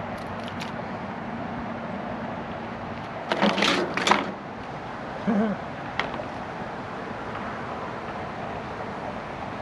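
Sharp clicks and clatter of a small metal pen-style fishing rod being handled and worked apart, with a loud cluster of clicks about three and a half seconds in and a single click a little later.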